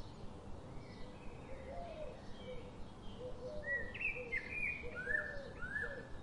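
Birds chirping: a run of short calls sweeping up and down in pitch, with a lower repeated call beneath, busiest and loudest in the second half.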